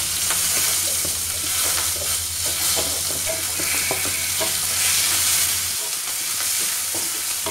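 Sliced onions sizzling in hot oil in a kadai as they are tipped in, then stirred with a spatula that taps and scrapes against the pan in short ticks.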